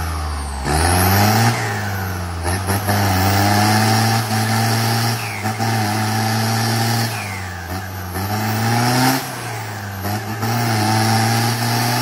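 A vehicle engine sound revving up and easing off again, about four or five times, each rise lasting a second or two.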